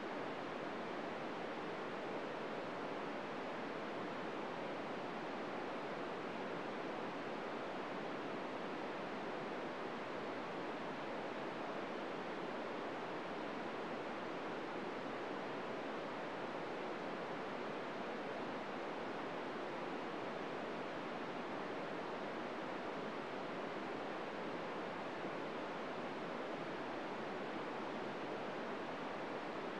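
Steady FM receiver hiss from an amateur radio tuned to the ISS downlink on 145.800 MHz, with the squelch open and no SSTV signal yet coming through, only noise.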